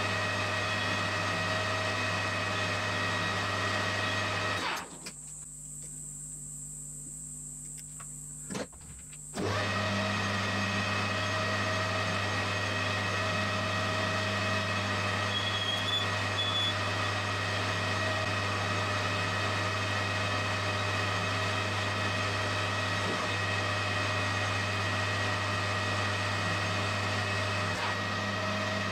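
Metal lathe running while turning aluminium stock, a steady machine hum. About five seconds in the hum drops out for some four seconds to a much quieter sound with a thin high whine, then comes back unchanged.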